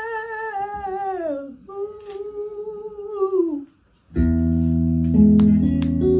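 Blues singer's wordless hummed vocal, live: two long held notes, each sliding down at the end. After a brief pause about four seconds in, a loud guitar chord is struck and rings on, with single notes added over it.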